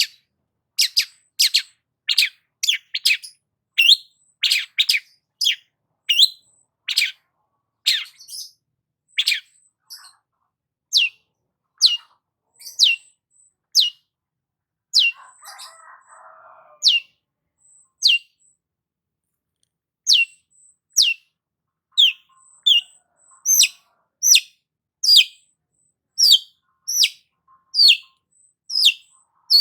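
Long-tailed shrike (cendet) calling a long series of sharp, high, steeply falling notes, about one or two a second, with a short break a little past the middle.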